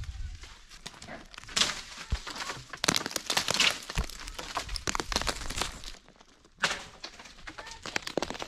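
Irregular crunching and clicking of dry twigs, leaves and acorns on hard dry ground, densest a few seconds in, with a brief pause about six seconds in.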